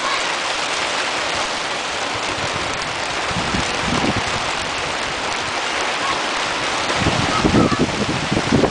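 Steady hiss of rain and running water. Gusts of wind buffet the microphone near the end.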